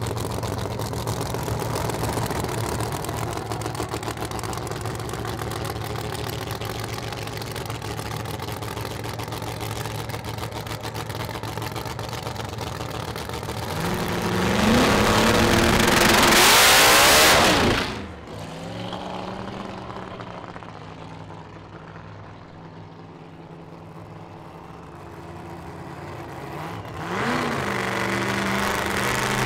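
Supercharged, methanol-burning 511ci Hemi V8 of a 1970 Chevelle doorslammer idling steadily, then revved hard about fourteen seconds in, rising to a very loud peak that cuts off suddenly a few seconds later. The engine then runs more quietly and revs up again near the end.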